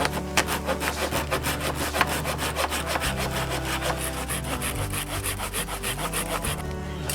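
Hand saw cutting through wood in quick, even strokes, stopping shortly before the end, over background music.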